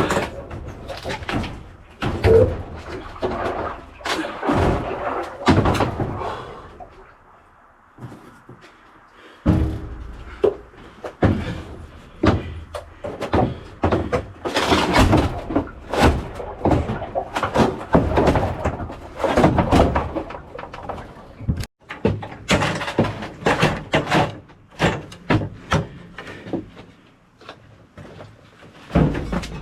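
Irregular knocks and thuds, many of them, with music playing.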